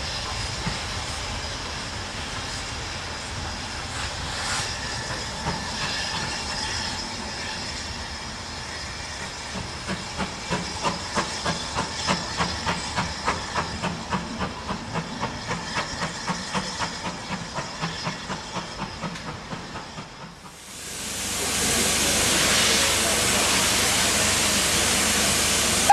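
Steam locomotive working, its exhaust chuffing about twice a second and fading. About twenty seconds in, the sound changes abruptly to a loud, steady hiss of escaping steam from a large steam locomotive standing at a platform.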